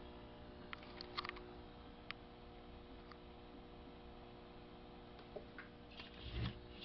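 Faint steady hum from the running equipment, with scattered small clicks and taps and a soft low thump about six seconds in.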